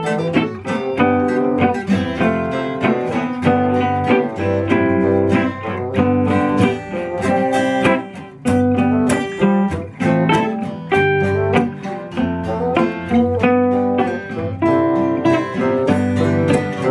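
Live band playing an instrumental passage led by guitar, with chords strummed in a steady, even rhythm.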